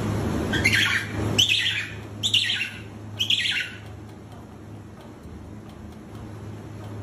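Emperor penguin chick calling: four short, high, whistling chirps, each sliding down in pitch, about one a second in the first four seconds. A steady low hum sits under the first call and fades out soon after.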